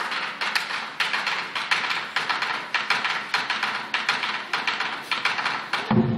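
Lion dance percussion: an even run of sharp, light strikes, about five a second, with little low end. Shortly before the end a fuller, deeper drum sound comes in.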